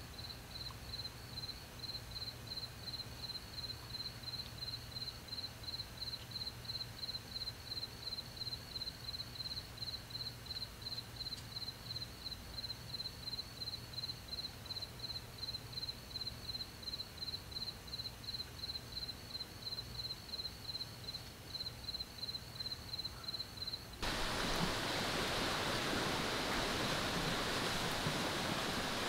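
A cricket chirping steadily, about three short chirps a second on one high pitch. About four seconds before the end this cuts to a steady rush of wind and waves.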